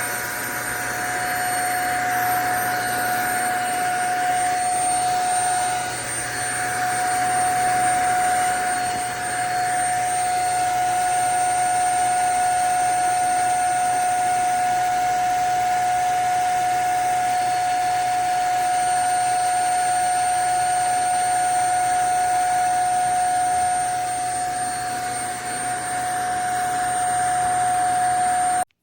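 JPHYLL Ultra-UVC-K16 mattress vacuum running with a steady high motor whine over a rushing suction noise that dips briefly a couple of times. It cuts off suddenly just before the end.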